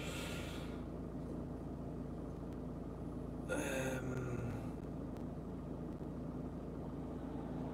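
Steady low mechanical hum inside a van's cabin, with one brief, louder sound that falls in pitch about three and a half seconds in.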